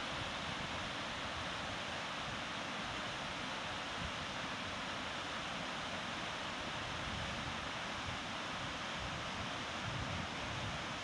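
Waterfall: water cascading over rock ledges into a pool, a steady rushing noise that stays even throughout.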